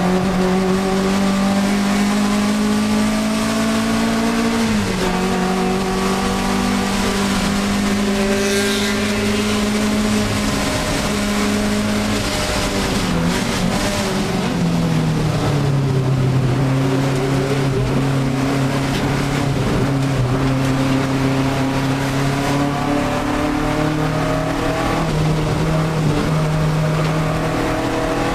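Alfa Romeo 1750 GTV's twin-cam four-cylinder engine at racing speed, heard from inside the cabin. Its pitch drops sharply about five seconds in and again between about thirteen and fifteen seconds, then climbs slowly as the revs build.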